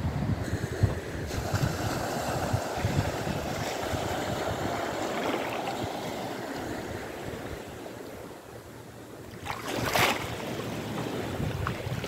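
Small sea waves washing over shallow water, with wind buffeting the microphone. A short, louder rush of water comes about ten seconds in.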